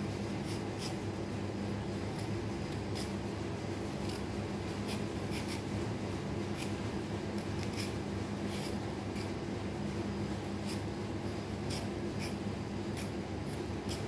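Handheld vegetable peeler's metal blade scraping the skin off a raw potato: short scraping strokes, about one or two a second, at uneven intervals.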